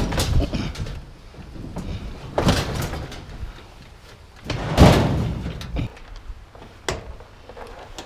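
Pieces of scrap metal being handled and dropped, giving a few separate bangs and clanks. The loudest comes about five seconds in, with a short ring after it.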